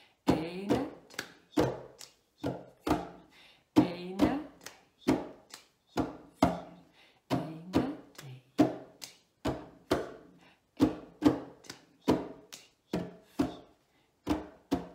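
Two people's hands slapping and tapping a wooden tabletop in unison, mixed with hand claps, in a body-percussion table rhythm. The strikes come about two to three a second, sharp with a short hollow wooden ring, and the four-beat pattern repeats every three to four seconds.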